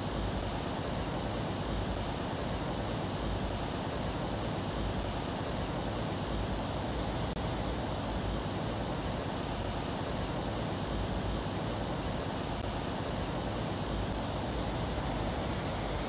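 Steady, even rushing noise with no distinct calls or knocks in it.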